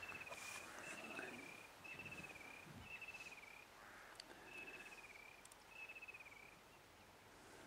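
A faint, high trilling call, repeated six times about once a second; each trill lasts about half a second and dips slightly in pitch. It is a small creature calling in the surrounding bush.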